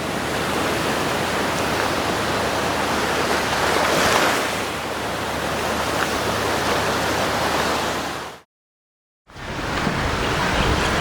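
Surf washing onto the beach: a steady wash of breaking waves with one swell about four seconds in. Near the end the sound cuts out completely for about a second, then the wash resumes.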